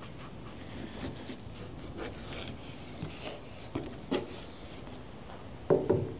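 Kitchen knife cutting through fish flesh on a cutting board: a few soft, scattered scraping strokes.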